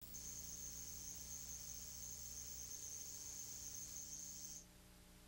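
Steady high-pitched whine with a low electrical hum under it, from the audio track of a videotape countdown leader. The whine cuts off suddenly about four and a half seconds in, leaving only the hum and tape hiss.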